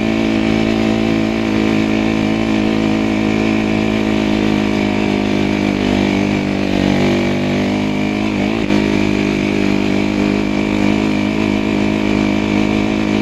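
Snow bike engine running steadily at cruising speed, with a brief dip and rise in pitch about eight and a half seconds in.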